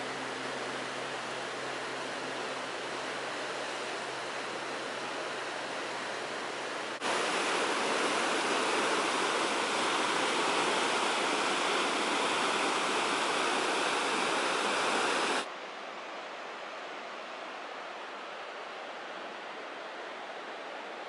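Steady rush of river water over rapids. It jumps abruptly louder and brighter about seven seconds in, then drops back to a quieter, duller rush about fifteen seconds in.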